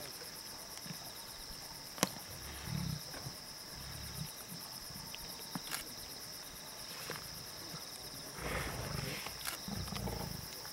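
Lions feeding on a carcass, giving low growls several times, the longest near the end, with a sharp crack about two seconds in. Crickets chirp steadily behind.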